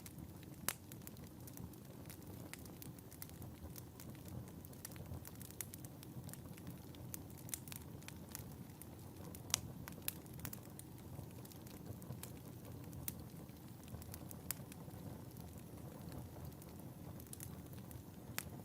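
Wood fire burning in a fireplace: a steady low hiss with frequent sharp crackles and pops scattered irregularly throughout.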